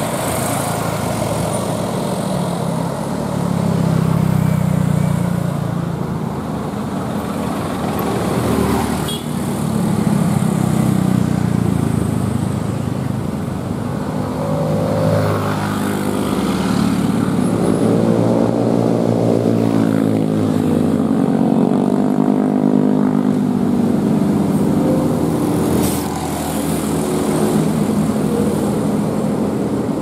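Road traffic passing: a coach bus, cars and motorcycles, their engines rising and falling in pitch as they go by.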